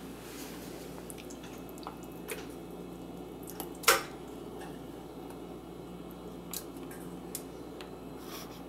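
Canned pumpkin puree being spooned into a blender jar: soft wet squishes and small clicks, with one sharp knock of the spoon about four seconds in.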